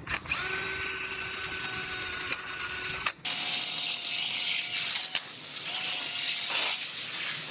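Power drill drilling out spot welds in the radiator support's sheet steel: a steady whine over a high grinding. It breaks off briefly about three seconds in and comes back at a different pitch.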